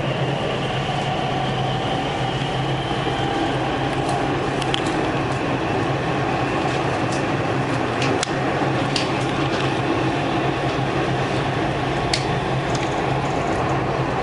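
Dubai Metro train running on elevated track, heard from inside the cabin: a steady hum and whine from the running gear over even rolling noise, with a few sharp clicks.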